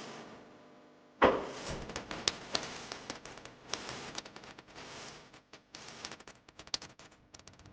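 A sudden knock about a second in, followed by irregular clicks, rattles and rustling, as of objects being handled.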